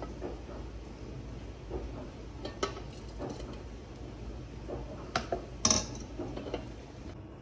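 Sharp metal-and-glass clinks of a steel ladle and a meat-grinder hopper tray used as a funnel on a glass jar, while raspberry jam is ladled into the jar. A handful of separate clinks, the loudest close together between about five and six seconds in.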